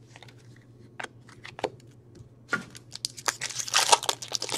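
Crinkling and tearing of a hockey card pack's foil wrapper being opened and handled: a few scattered crackles at first, then denser crinkling over the last second and a half.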